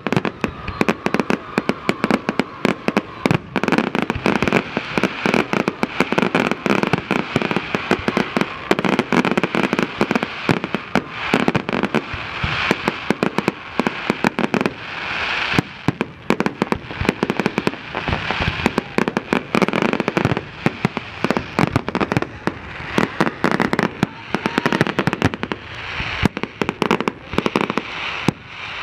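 A fireworks display in full barrage: a dense, rapid run of shell bursts and crackles, one on top of the next with no gap.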